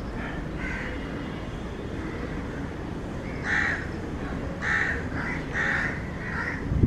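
A bird calling repeatedly: short calls, faint at first, then about six louder ones in quick succession from about halfway through, over a steady low rumble.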